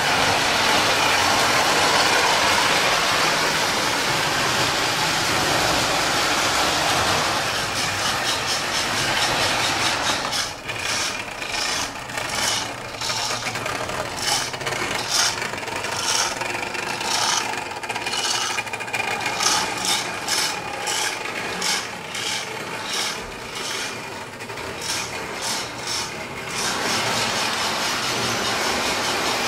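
Lionel O-gauge model trains running on three-rail tinplate track, a steady rumble of motors and wheels. From about ten seconds in until near the end, a rhythmic clicking of roughly two a second runs over it as a Rio Grande steam locomotive passes close.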